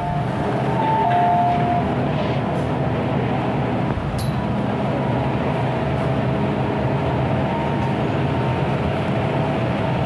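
MTR Island Line M-Train electric multiple unit running, a continuous rumble with a faint steady hum.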